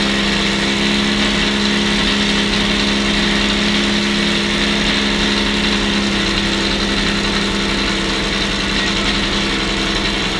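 Lancia Stratos rally car's engine idling steadily, holding an even pitch without revving.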